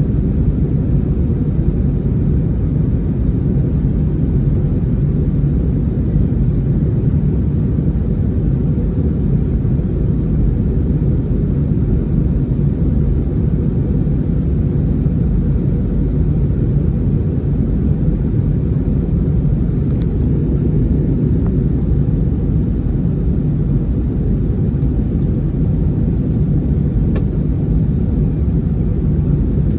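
Steady low rumble of an Airbus A321neo's engines and airflow heard inside the passenger cabin, with a few faint clicks in the second half.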